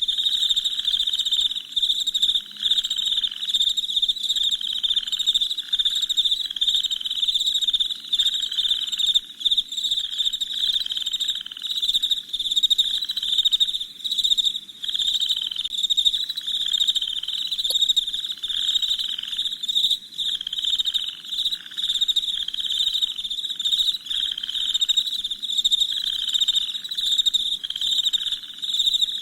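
Night chorus of crickets chirping: a high, continuous trill broken into repeated chirps a little more than once a second, each dropping slightly in pitch.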